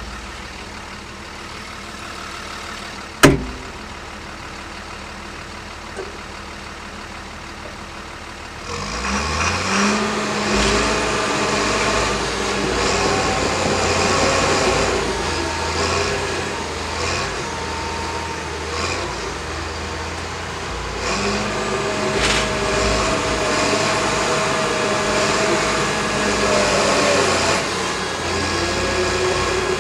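Cat D6K crawler dozer's diesel engine running at low speed, with one sharp knock about three seconds in. About nine seconds in the engine revs up and keeps running loud under load as the blade pushes frozen dirt and rocks, rising again about twenty seconds in.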